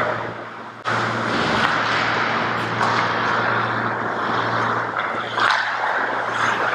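Ice hockey play on an indoor rink: a steady rush of noise over a constant low hum, with a few sharp stick or puck clacks near the end. The noise jumps up suddenly about a second in.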